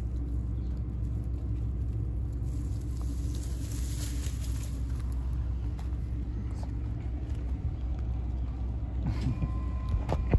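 A steady low rumble, with a few faint clicks near the end.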